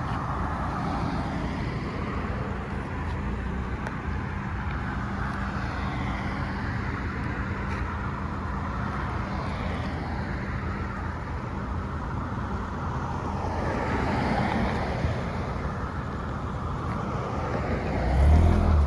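Car engines running with a steady low hum. A louder, deeper engine rumble comes in near the end.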